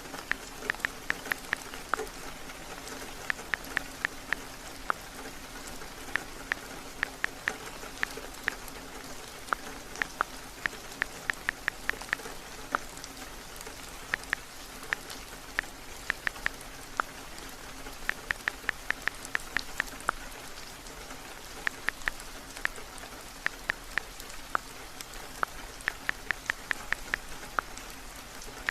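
Steady heavy rain, with frequent runs of quick, sharp clicks of typing on a phone keyboard, several taps a second in bursts.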